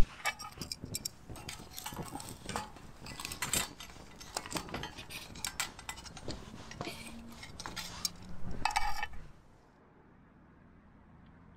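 Metal tongs clinking against a stainless-steel folding twig stove as wooden fuel is fed and pushed into the burning stove: a run of irregular clinks and knocks that stops about nine seconds in.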